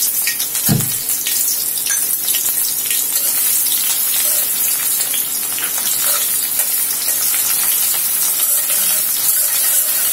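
Sliced onion and green chillies sizzling steadily in hot oil in an aluminium wok, with a spatula stirring and clicking against the metal. A dull knock about a second in.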